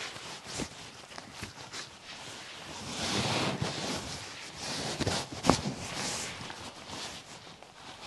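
Handling rustle and a few faint clicks, then one sharp crack about five and a half seconds in: a neck joint popping during a manual neck adjustment.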